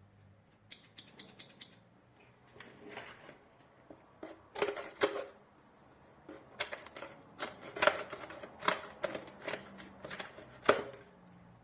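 Metal clicks, snaps and short rattles of a folding multi-tool being handled, its parts opened and closed. A run of light ticks comes about a second in, then louder clicking in clusters from about four seconds in.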